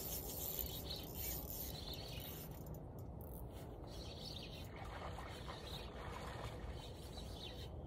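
Steady outdoor background noise: a continuous low rumble with a hissing rush in the upper range that comes and goes.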